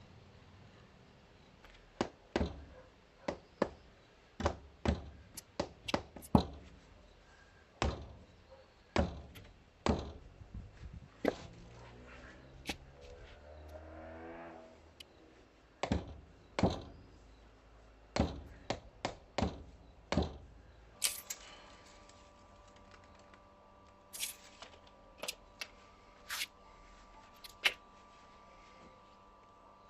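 An irregular series of sharp thunks and knocks from hand work on stone or concrete paving, densely for about twenty seconds, then a few sparser knocks. Over the last part a faint steady hum sits underneath.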